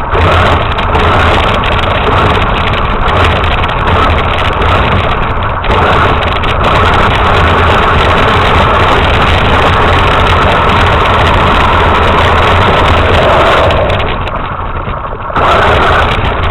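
Radio-controlled truck's motor running steadily, easing off briefly about two seconds before the end.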